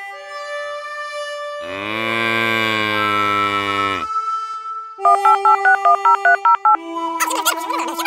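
Light background music with added cartoon sound effects. Starting about a second and a half in, a long low moo lasts about two and a half seconds. About five seconds in comes a rapid electronic ringing of two alternating pitches, like a telephone, lasting under two seconds.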